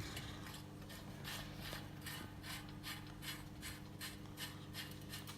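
Ratchet wrench clicking in a quick, even run of strokes, about three or four clicks a second, as bolts are run in before the final tightening.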